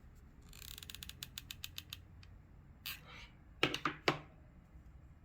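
A quick run of small ratchety clicks lasting about a second and a half, then a tap and a cluster of three louder knocks near the end: craft supplies being handled on a tabletop.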